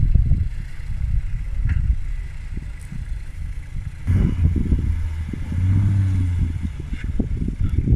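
Off-road 4x4's engine working over rocks at low speed, the revs surging twice in the second half, with scattered clatter.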